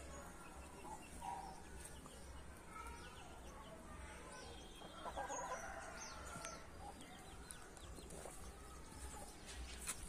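Chickens clucking softly in short scattered calls, with a louder call about five seconds in.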